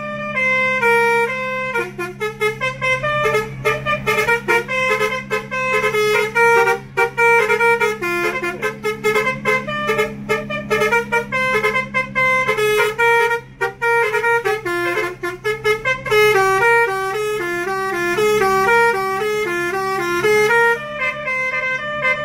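A bus's basuri musical air horn playing a quick melody, note after note, over the steady low drone of the bus's engine.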